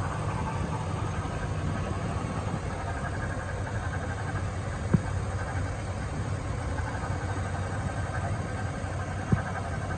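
A 1999 GMC Sierra's Vortec engine idling steadily with the hood open, a low even hum. Two short sharp clicks stand out, about halfway through and near the end.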